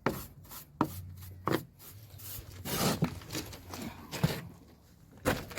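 A brush scrubbing over part-dried mortar in a series of short strokes, brushing the pointed joint off to a coarse finish.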